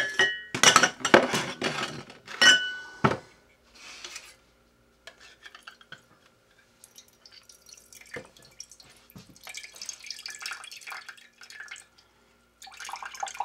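Metal food cans clinking and clanking against the counter and each other, with a brief metallic ring, over the first three seconds. Liquid then drips and trickles from an opened can held upside down to drain, with small clicks of the can.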